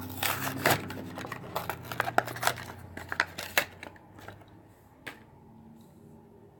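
Plastic blister pack of a carded Hot Wheels die-cast car being cracked open and pulled off its cardboard backing: a quick run of crackling, crinkling and tearing for about the first three and a half seconds, then a single click a little after five seconds.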